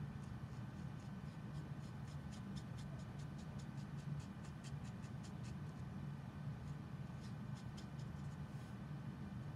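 Copic E00 marker's brush nib stroking across blending card in short quick strokes, several a second, with a pause about two thirds through before a few more strokes. A low steady hum runs underneath.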